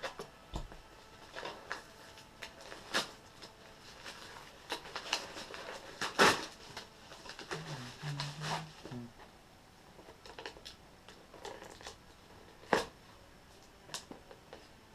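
A package being opened and handled: intermittent rustling and scraping with scattered sharp clicks, the loudest about six seconds in and again near thirteen seconds.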